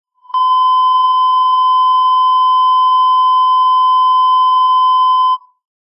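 Emergency alert tone: one steady, high-pitched electronic tone held for about five seconds, starting and stopping abruptly.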